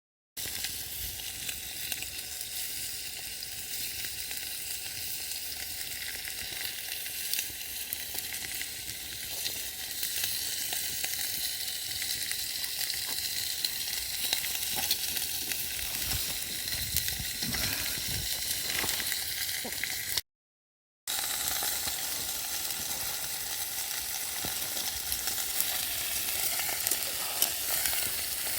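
Food sizzling as it fries in a pan over a wood campfire, with a steady hiss and small pops, and occasional stirring. The sound breaks off for under a second about twenty seconds in.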